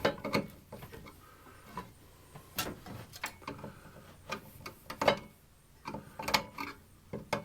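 Irregular clicks, knocks and scrapes of hands working Romex cable and its fittings into an electrical box, about eight sharp knocks spread unevenly through.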